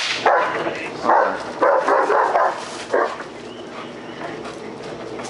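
A dog barking in several rough bursts during the first three seconds, then quieter.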